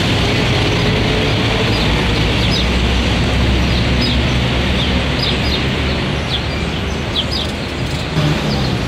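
Small birds chirping, many short falling chirps, over steady street noise with a low engine hum.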